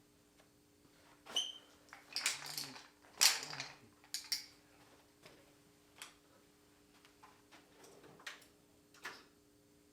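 Metal hand tools clinking and clattering as they are handled and set down in a toolbox, a series of scattered clicks with two louder clatters about two and three seconds in and a brief metallic ring just before them.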